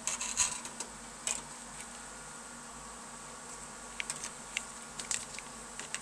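A screwdriver driving a screw through a PCI card's metal bracket into the steel computer case, giving scattered small metallic clicks and scrapes in two clusters, early and again about four seconds in. Under them runs a faint steady high whine.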